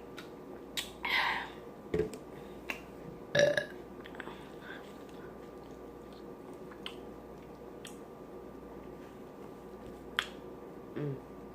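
A woman burping, a few short separate burps, the loudest a little over three seconds in, with small wet mouth clicks and smacks between them.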